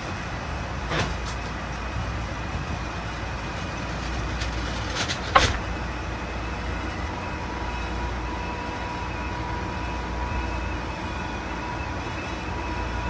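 Steady low rumble and hum inside an Amtrak Coast Starlight dining car, with a sharp click about a second in and a louder one about five seconds in. A faint steady whine comes in about halfway through.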